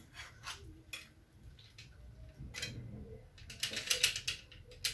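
Metal serving utensils tapping and scraping against a cooking pan and a ceramic plate as a whole stewed fish is lifted across and set down: a few faint taps, then a quick run of clicks near the end.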